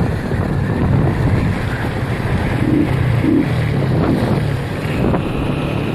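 Wind buffeting a motorcycle helmet camera's microphone at riding speed, over the motorcycle's engine running. A gloved hand rubs across the camera as snow is wiped off the lens at the start.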